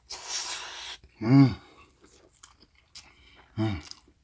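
Spicy cold mixed noodles (Paldo Bibimmyeon) being eaten: a noisy slurp lasting about a second, then chewing with small clicking mouth sounds. Two short hummed "mm" sounds come through the chewing, one about a second in and one near the end.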